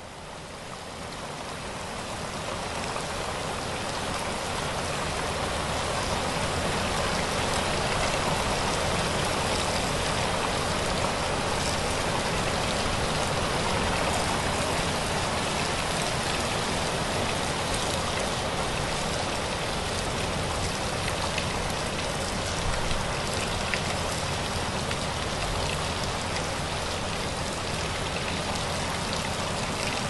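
Heavy rain falling steadily, a dense hiss with scattered sharper drop hits. It fades in over the first few seconds.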